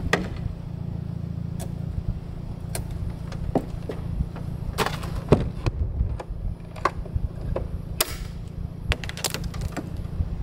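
Scattered sharp knocks and clacks as hatch lids and gear are handled on a fiberglass flats skiff, a cluster of them about halfway through and another near the end, over a steady low rumble.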